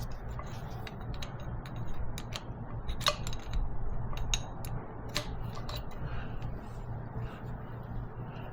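Scattered, irregular light metallic clicks and clinks of a wrench and small pry bar working a fuel injector hard-line nut on a diesel engine, over a steady low hum.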